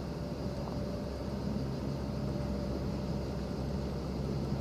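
Boeing 757's jet engines at takeoff power, a steady low rumble as the airliner climbs away.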